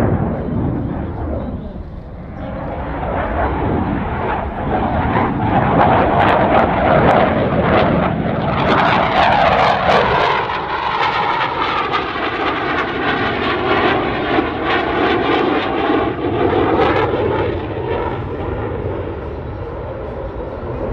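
CF-18 Hornet's twin General Electric F404 turbofans running loud through a flying display. The jet noise dips briefly about two seconds in, then builds. From about nine seconds in it takes on a sweeping, phasing whoosh as the jet passes by.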